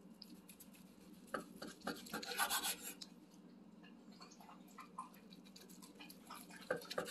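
A large knife sawing through smoked brisket and its crusty bark, with rasping back-and-forth strokes, the loudest a couple of seconds in. Near the end there are a few sharp clicks as the blade meets the wooden cutting board.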